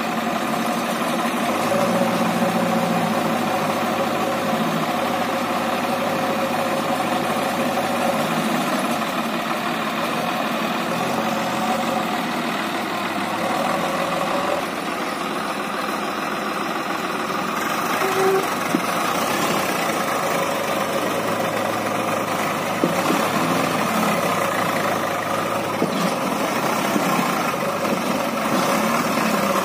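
Diesel engines of a Swaraj 744 FE tractor and a JCB backhoe loader running steadily while the loader fills the tractor's trolley with mud, the engine speed shifting up and down now and then. Near the end the tractor moves off pulling the loaded trolley.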